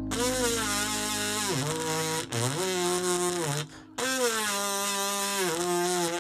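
Instrumental break of a song: a buzzy lead melody with sliding, swooping notes in three phrases over a held low note, cutting off abruptly at the end.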